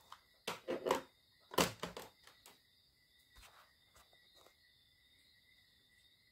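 A few knocks and clatters of handling in the first two seconds, over a faint, steady high-pitched tone.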